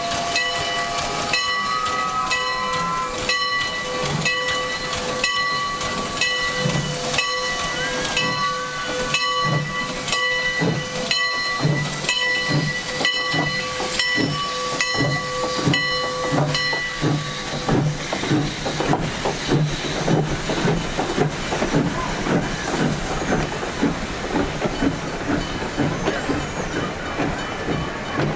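Train sounding a long whistle of several notes at once, held for about seventeen seconds over a steady rhythmic clatter. After the whistle stops, the clatter and hiss carry on.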